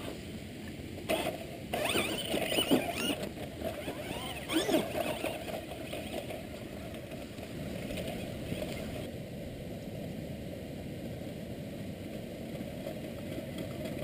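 Electric RC monster truck's motor and gears whining as it drives. The pitch rises and falls with the throttle in the first few seconds, then settles into a steadier running noise.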